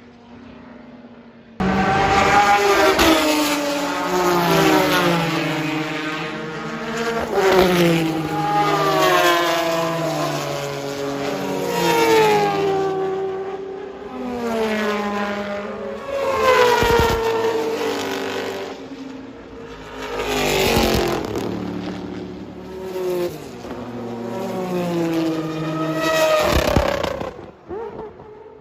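Mazda 767B race car's four-rotor rotary engine revving hard. It comes in abruptly about a second and a half in, then its pitch climbs and drops back again and again.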